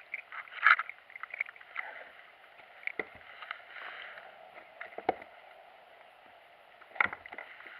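Handling noise on a plastic kayak as a just-caught chain pickerel dangles on the line: a few sharp knocks and thumps a second or two apart over a steady outdoor hiss.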